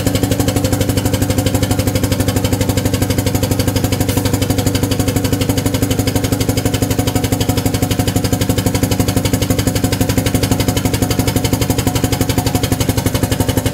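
Pneumatic drum tipper's air-driven hydraulic power unit running steadily as it lifts a clamped 220-litre drum, a loud, fast, even pulsing.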